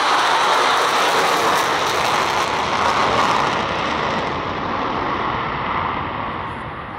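Jet noise from four Blue Angels F/A-18 Super Hornets with GE F414 turbofans flying in formation. It is a steady, loud roar that fades as the jets draw away, and its high end thins out from about four seconds in.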